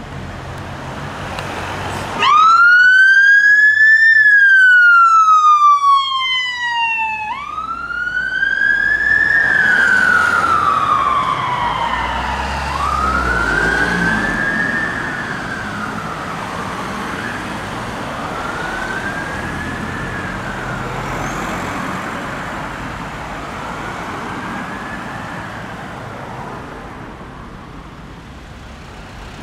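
Whelen Alpha electronic police siren on a Vauxhall Astra Mk6 patrol car sounding the wail tone: it starts suddenly about two seconds in, very loud, with slow rising and falling sweeps of about five seconds each. It grows steadily fainter as the car drives away, over traffic noise.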